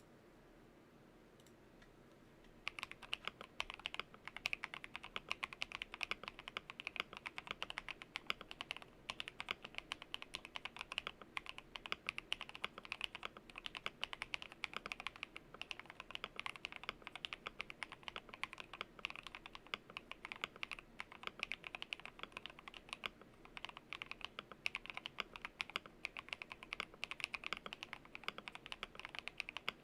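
RK61 mechanical keyboard with lubed Akko Silver linear switches, tape mod and case foam, typed on rapidly with dense, fast keystrokes. The typing starts about three seconds in, after a faint background hum.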